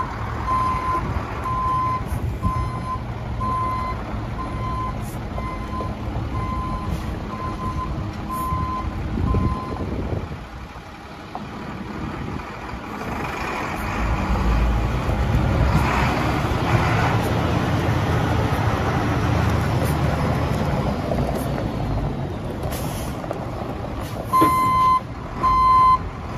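1997 International 4900 flatbed truck's diesel engine running while its backup alarm beeps a steady single tone, a bit over once a second, for the first several seconds as it reverses. The beeping stops and the engine grows louder through the middle as the truck drives. Near the end the backup alarm sounds again, louder.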